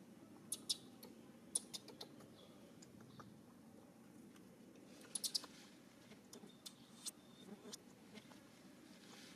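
Faint, sparse sharp clicks and crackles, some in quick clusters of two to four, over a low steady background hiss.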